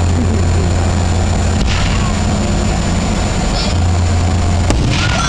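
A steady low rumble throughout, with one sharp crack near the end from an aerial firework shell bursting.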